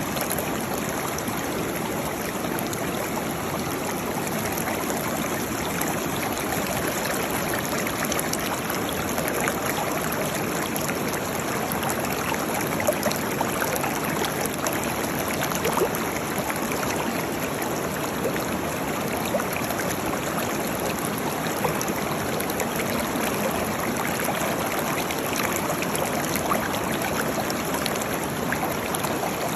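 Waterfall: a steady rush of falling water, with now and then a brief louder splash.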